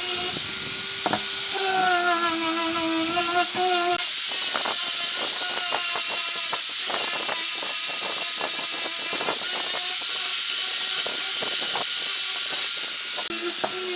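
Power tool motor whining at a steady pitch, dipping briefly, then a long hissing, crackling stretch as the tool works into the wood. The whine comes back near the end.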